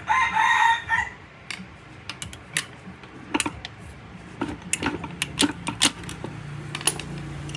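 A rooster crows once, briefly, right at the start. Then come scattered sharp metallic clicks and clinks as the parts of a stripped motorcycle engine's gear-shift mechanism are handled and worked loose. The part is bent and will not come out easily.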